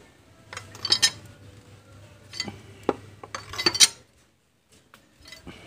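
Metal hand tools and parts clinking and clattering in several quick clusters over a faint steady low hum, as mechanic's work goes on.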